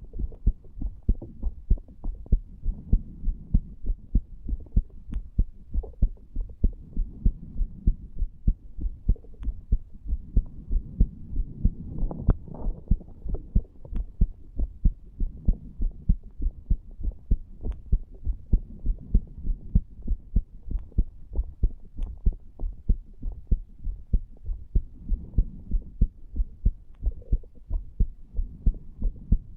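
Human heart sounds picked up over the tricuspid valve area of the chest: a steady, regular lub-dub of low thumps over a faint low hum. This is the heartbeat of a man under the influence of nicotine from a cigar and cannabis.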